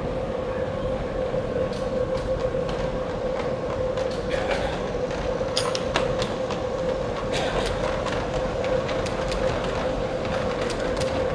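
Model electric trams running on a tramway layout: a steady hum with scattered light clicks, the wheels passing over rail joints and points.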